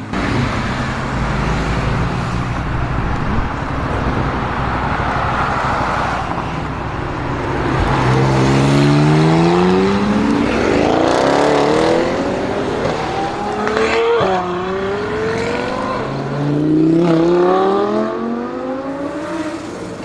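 Twin-turbo V8 of a tuned Audi RS Q8 accelerating hard under full throttle. After a stretch of steady rushing noise, the engine note climbs three times, dropping back sharply at each gear change.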